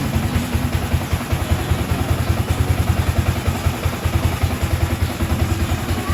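Yamaha Sniper 155 VVA's single-cylinder 155 cc four-stroke engine idling steadily, with an even, rapid exhaust pulse.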